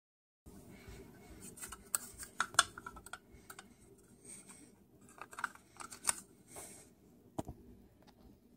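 Handling noise: irregular clicks, taps and scrapes of a small black plastic part being turned over in the hand.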